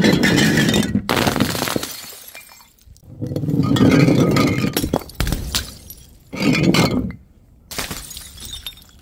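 Glass bottles smashing, about four separate loud crashes a second or two apart, each with shards clinking as they scatter, and a smaller crash near the end.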